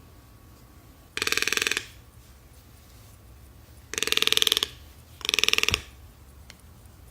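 A parrot making three short, buzzy, rattling calls, each lasting about half a second, the second and third close together.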